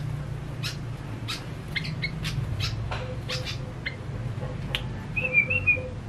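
Male yellow-vented bulbul (trucukan) singing a short bubbly warbled phrase near the end, the loudest sound, after a run of short sharp ticks, over a steady low hum.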